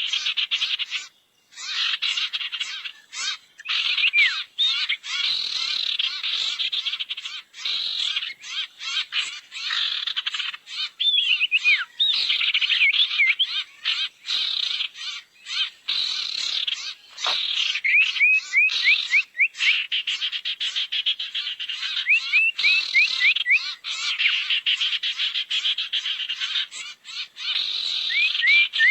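Lure-call recording of burung sirtu: dense, continuous twittering chatter, broken every few seconds by runs of quick rising chirps.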